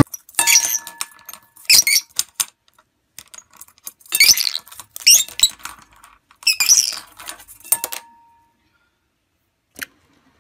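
A small parrot tossing and dragging a plastic clothespin inside a nonstick metal cooking pot: irregular bursts of scraping and clattering, with the pot ringing faintly after some knocks. The clatter stops about eight seconds in.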